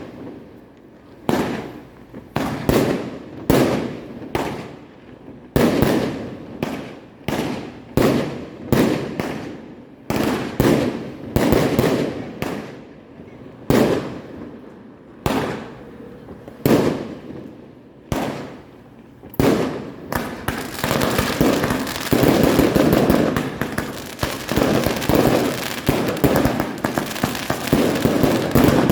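Fireworks going off: sharp bangs one after another, about one to two a second, each with a fading rumble. About twenty seconds in they merge into a dense, continuous crackling barrage.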